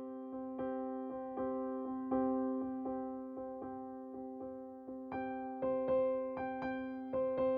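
Background music: an electric piano playing repeated notes at a steady pulse, with a higher melody joining about five seconds in.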